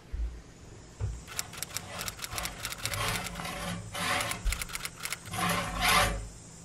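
Curtains being drawn open: a rapid run of rattling clicks as the curtain rings slide along the rod, followed by the fabric swishing twice.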